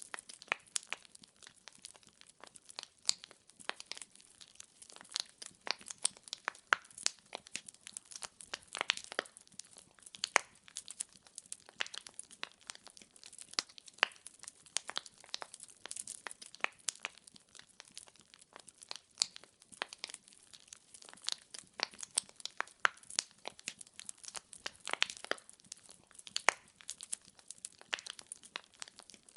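Wood fire burning in a fireplace: the logs crackle and pop in sharp, irregular clicks, several a second, over a faint hiss.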